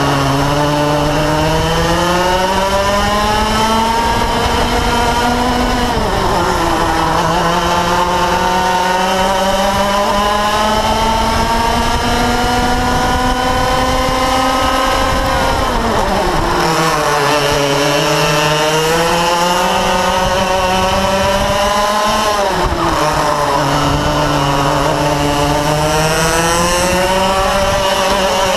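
Racing kart's Yamaha KT100 two-stroke engine at full throttle, its pitch climbing steadily along the straights and dropping sharply three times as the driver brakes for corners.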